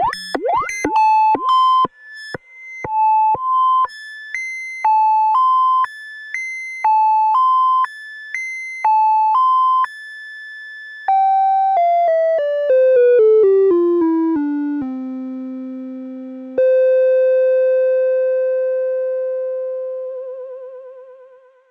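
Arturia MicroBrute analogue synthesizer playing a step-sequencer pattern of short, high electronic notes, about two a second. It then runs down in pitch note by note, settles on a low held note, and ends on one sustained tone that fades out with a fast warble near the end.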